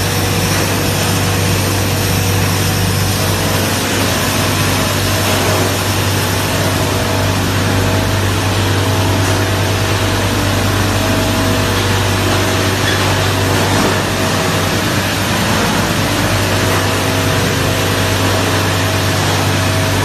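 QD-600S copper wire granulator line running: a loud, steady mechanical noise with a strong low hum.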